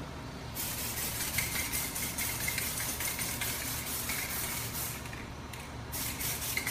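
Aerosol can of blending thinner spraying in a steady hiss that starts about half a second in, stops briefly near the end and starts again. It is being sprayed over the edge of freshly painted clear coat to melt away the boundary line.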